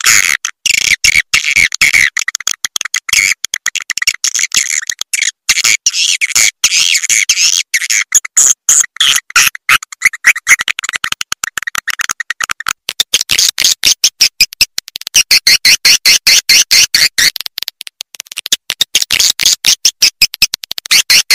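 Recorded swiftlet calls: dense, rapid twittering and chirping of many edible-nest swiftlets, played as a call-and-lure sound for swiftlet houses. About two-thirds of the way in, the calls turn higher and come in a fast, even series for a few seconds.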